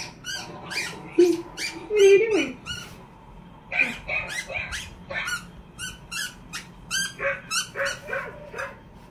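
A dog chewing a squeaky plush toy, setting off quick runs of short, high squeaks, two to three a second, with a short pause about three seconds in.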